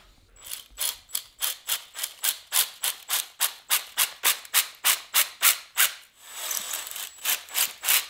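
Flex hone spun by a cordless drill, rasping against a two-stroke's Nikasil-coated cylinder bore as it is stroked in and out, about three rasps a second, deglazing the cylinder walls. About six seconds in the rasping runs on without a break for a moment, then the strokes resume.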